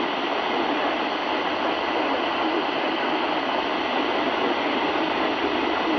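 Steady hiss of radio static from a weather radio receiver picking up a weak broadcast, cut off sharply in the treble like a narrow radio channel.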